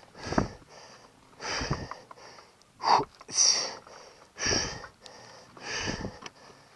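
Heavy, rasping breathing of a man out of breath, close to the microphone, about one loud breath every second.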